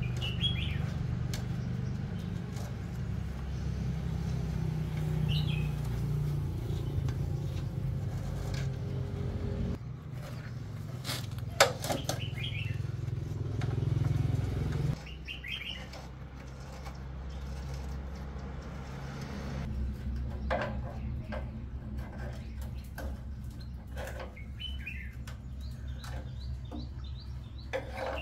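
Steel concrete-mould parts knocking and clinking as they are handled, a few scattered knocks with the loudest about a third of the way in and a cluster near the end. Short bird chirps come every few seconds over a low steady rumble.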